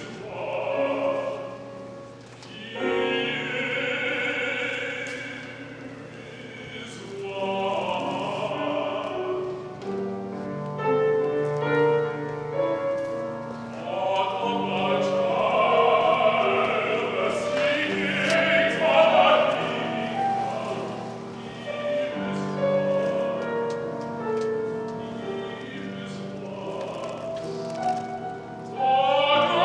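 A solo tenor sings a concert spiritual in classical style to grand piano accompaniment, the phrases swelling and falling back.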